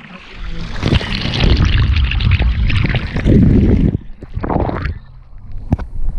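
Water pouring and splashing down a gem-mining sluice flume, heard close up, dropping off sharply about four seconds in.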